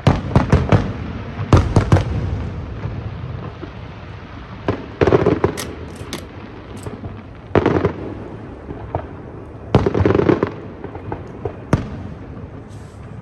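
Aerial fireworks shells bursting overhead: clusters of sharp bangs and crackles come every few seconds, with a rumbling echo in between.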